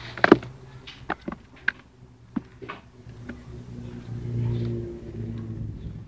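Sharp clicks and knocks close to the microphone in the first three seconds, loudest about a third of a second in, as a red squirrel scrabbles about right at the phone. Then a low humming drone swells and fades between about four and five and a half seconds in.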